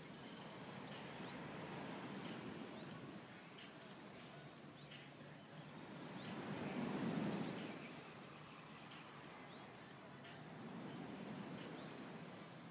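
Birds chirping in short, scattered calls over a low rushing background wash that swells and fades, loudest about halfway through.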